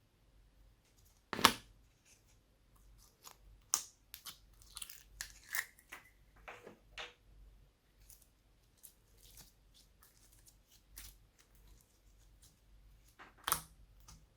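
Glossy slime being handled, pressed and stretched, giving irregular sticky clicks, pops and crackles, with a louder snap about a second and a half in and another near the end.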